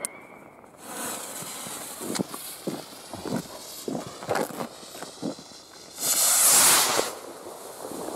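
SP-700 sky rocket lit and launched: a hiss as it lifts off just under a second in, scattered crackles and pops while it climbs, then a loud rushing hiss for about a second, some six seconds in.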